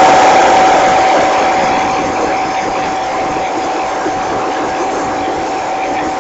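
Leaf blower running with a loud, steady whine, blowing into an air-conditioning blower fan that serves as a wind generator. The noise eases off a little over the first two seconds, then holds steady.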